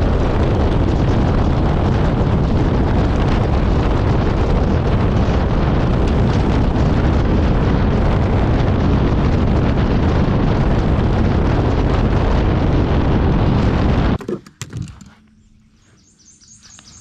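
Bass boat running at speed: a loud, steady rush of wind on the microphone mixed with outboard engine noise. About fourteen seconds in it cuts off suddenly to much quieter sound with a few light knocks.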